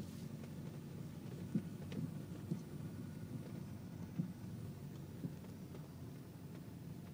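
Worn anti-roll bar drop links on a Peugeot 406 HDi knocking over a bumpy road, heard inside the cabin: about half a dozen short, irregular clunks over the steady low rumble of the road and engine.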